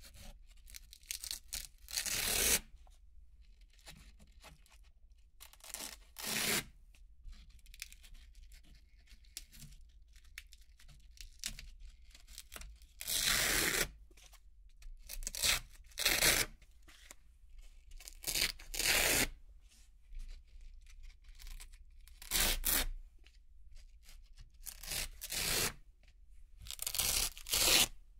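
Round hook-and-loop (Velcro) discs being ripped off a Velcro-covered board one after another. Each is a short, crisp, crunchy tearing rip, about a dozen in all, irregularly spaced with quiet gaps between.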